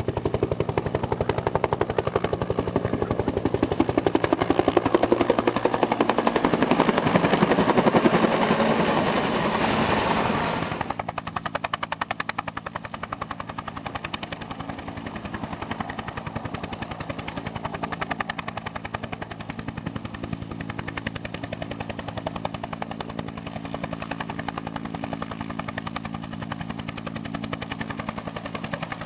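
Bell Huey helicopter's two-bladed main rotor beating rapidly over a steady engine and transmission drone. It is loud for the first ten seconds or so, then drops abruptly in level and stays steadier and quieter.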